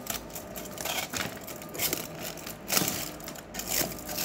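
Aluminium foil crinkling and crackling in irregular bursts as hands press and handle a foil-wrapped cardboard box.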